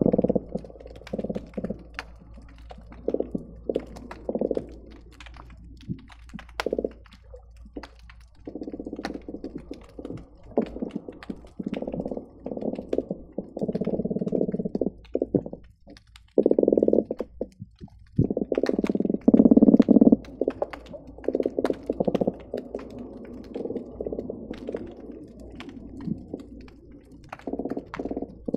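Croakers calling underwater, heard through a hydrophone: repeated low croaking bouts, each a second or two long, some overlapping, the loudest about two-thirds of the way through. Sharp clicks are scattered throughout.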